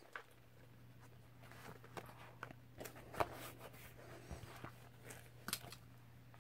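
Soft rustling and handling noises of a traveler's notebook being opened and its paper inserts turned, with a few short sharper clicks, the loudest about three seconds in and again about five and a half seconds in. A low steady hum sits underneath.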